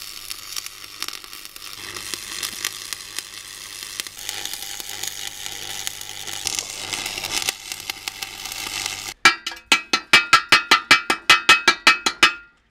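Stick (arc) welder crackling and sizzling steadily as a propane-tank base is welded into a steel car wheel rim. About nine seconds in, the arc stops and a chipping hammer rapidly knocks slag off the weld, about six sharp, ringing metal strikes a second.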